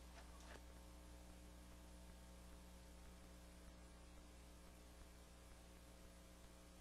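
Near silence: a faint steady hum under low hiss.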